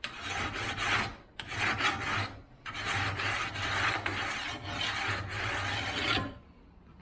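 A file rasping along the rails of a 24-inch Oregon chainsaw bar in repeated strokes, dressing off the burr (wire edge) on the rail edges. The filing stops about six seconds in.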